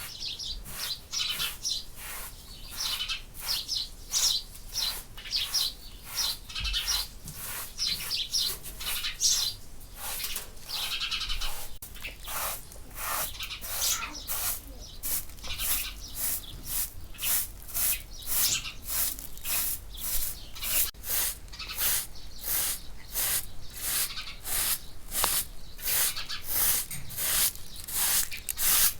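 Rhythmic brushing strokes, about two a second, steadier in the second half, typical of scrubbing a carpet or rug with a stiff brush. Birds chirp through the first half.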